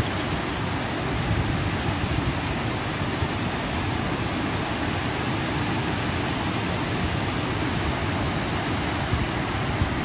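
Steady rush of water pouring over a wide river waterfall, an even, unbroken noise.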